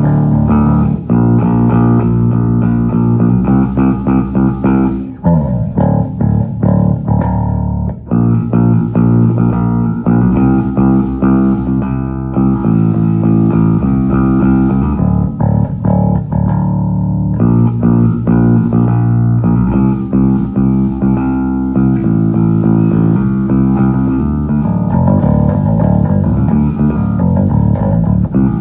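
Wolf S7-7 seven-string electric bass, strung low F# to high C, played solo through a Phil Jones Bass amp with no effects: a passage of sustained notes changing pitch, with a downward slide about five seconds in.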